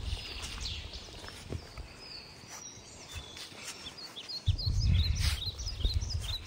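Small birds chirping, with many short, quick, high chirps through the whole stretch. A low rumble at the start drops away, then returns louder after about four seconds.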